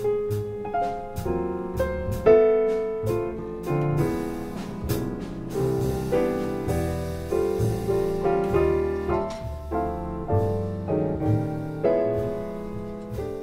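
Jazz piano solo: swinging chords and quick runs of single notes, with low bass notes underneath.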